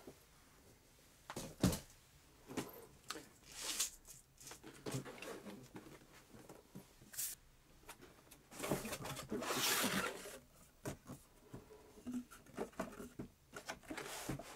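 Cardboard product box being handled and opened: scattered taps and scrapes, with a longer stretch of rustling about nine to ten seconds in as the lid and packing come away.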